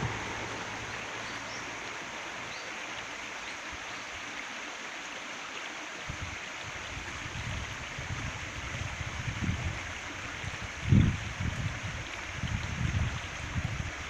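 Shallow stream running and trickling over stones, a steady rushing hiss. From about halfway in, low rumbles come and go, with one sharp thud about eleven seconds in.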